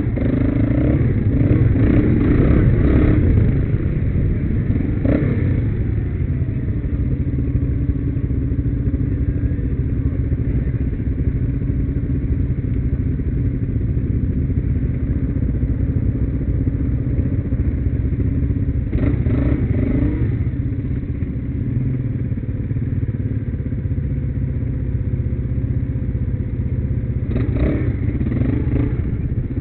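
Quad bike (ATV) engine running steadily, heard from the rider's helmet. Short bouts of clattering knocks from the machine over rough ground come near the start, about two-thirds of the way in, and near the end.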